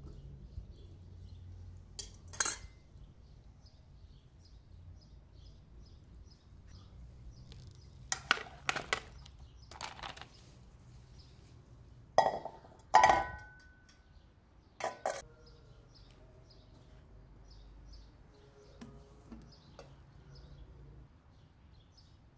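Metal cooking pots and lids being handled: a series of separate clinks and knocks, the loudest about 13 seconds in, some leaving a brief metallic ring.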